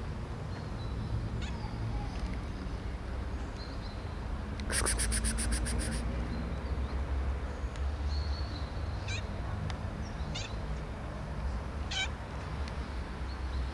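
Cat meowing a few short times, mostly in the second half, over a steady low rumble. A brief rapid rattle about five seconds in.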